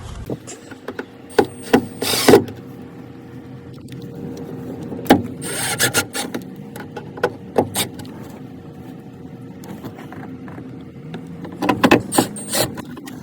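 Irregular clicks, knocks and short scraping sounds of hand work: screws being handled and driven with a screwdriver to fasten a 6.5-inch car speaker into its adapter ring in the door. A faint steady hum runs underneath.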